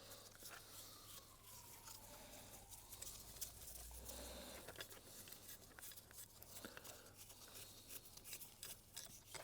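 Faint, irregular clicks and scrapes of hand tools and metal parts being worked while stripping an oil pump.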